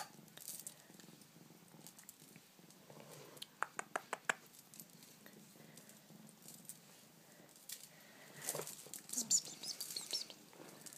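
Bengal kitten purring faintly and steadily close to the microphone. A quick run of sharp clicks comes about four seconds in, and louder rustling with a brief high sound comes near the end.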